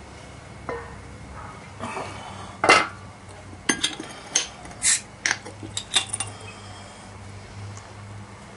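Heavy enamelled cast-iron pot lid being lifted off and handled: a loud knock about three seconds in, then a quick run of sharp clinks and knocks.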